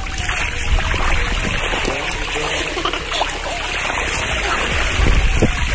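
Swimming-pool water splashing and sloshing as people move about in it, with a bigger splash late on.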